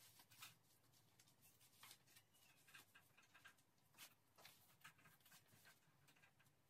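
Near silence: quiet room tone with a few faint, scattered clicks and rustles.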